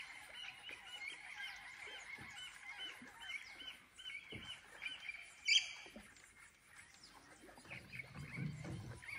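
A bird calling over and over in short rising-and-falling notes, about three a second, with one louder call about five and a half seconds in; the calls fade in the last few seconds.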